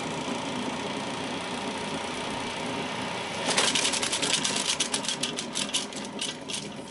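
Akai 1730D-SS reel-to-reel tape deck rewinding with a steady whir. About halfway through, a rapid run of slapping clicks starts and gradually slows, typical of the loose tape end flapping against the still-spinning reel once the rewind runs out.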